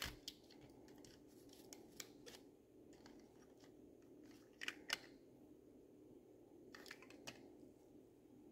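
Near silence with a few faint, sharp clicks and taps, two close together about five seconds in, as a die-cast metal model car is handled and its opening doors are worked.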